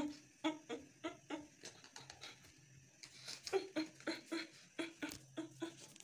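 Soft background music of short plucked, guitar-like notes in a steady rhythm, about three or four a second, thinning out for about a second partway through.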